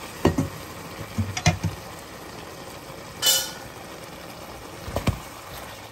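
Kitchen utensils and cookware knocking and clinking against a cooking pot in a few short clusters, with one brief hiss a little over three seconds in.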